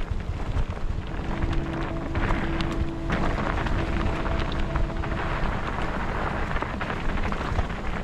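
Mountain bike rolling along a dirt trail: a steady rush of tyre, dirt and wind noise peppered with small rattles and knocks from the rough ground.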